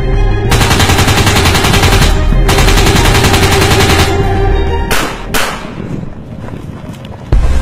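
Two bursts of rapid gunfire, each about a second and a half long, then two single gunshots, over background music.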